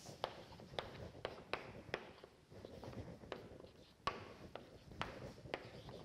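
Marker pen writing on a whiteboard: a faint, irregular string of short taps and scratches as each stroke is drawn.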